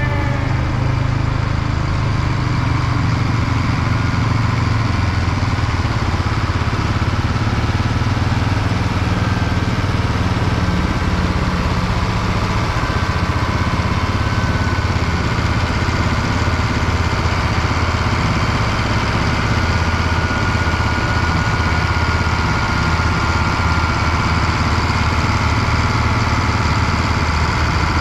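Diesel farm-machinery engine running steadily at a constant speed, with a faint higher whine over it in the middle stretch.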